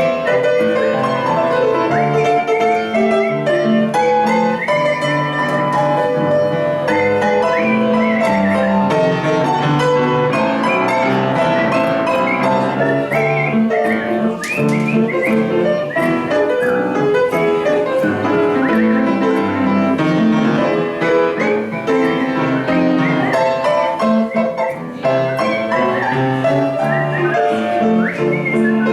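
A person whistling a song melody with sliding notes, accompanied by piano.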